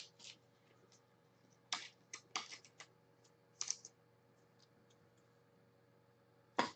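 Trading cards being handled in plastic sleeves and a top loader: scattered short rustles and clicks, with a sharper tap near the end.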